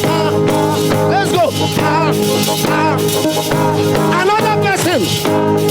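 Live praise music with steady held keyboard chords and a beat, under a singing voice with sliding notes.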